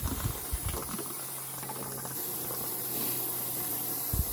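An engine running steadily with a low hum under an even hiss. There are a few low thumps in the first second and another near the end.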